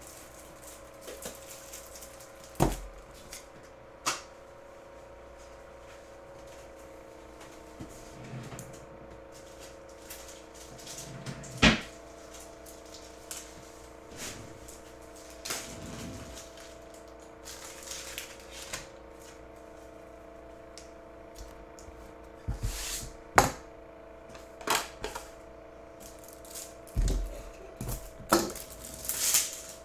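Scattered sharp clicks and knocks of cardboard boxes and card supplies being handled on a tabletop, the loudest about 12 and 23 seconds in, over a steady low hum.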